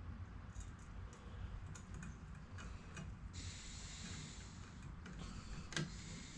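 Faint, scattered small clicks and taps of a screwdriver and small grub screws being handled, with a brief rustle about three and a half seconds in.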